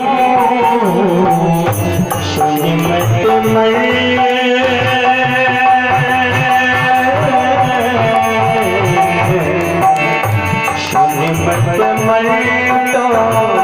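Indian devotional instrumental music: a melody of held notes over a steady hand-drum beat of about two to three strokes a second, which comes in about four seconds in.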